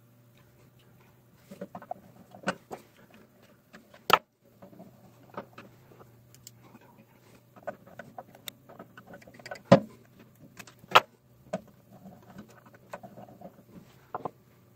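Hand tools working on wire lugs and screw terminals inside a metal power-supply chassis while the toroid transformer's secondary taps are reconnected, sped up four times: irregular clicks, taps and small rattles of metal on metal, the sharpest about 4, 10 and 11 seconds in. A faint steady hum sits underneath.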